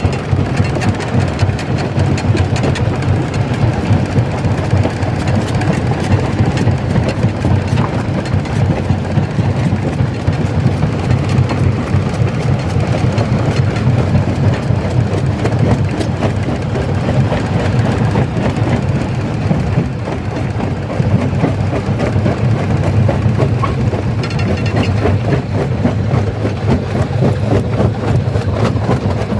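Large rock crusher running under load, crushing stone: a steady, deep machine drone with a continuous, dense clatter of rock breaking and tumbling.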